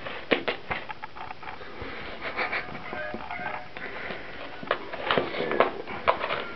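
Cat batting a dead mouse about on a wooden floor with its paw: scattered light taps and scuffs, with soft sniffing.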